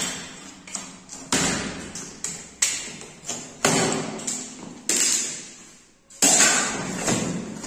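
Cardboard box and packaging of a split air conditioner's outdoor condenser unit being opened and handled: a series of sharp taps and thumps, roughly one a second, with a louder, longer one about six seconds in.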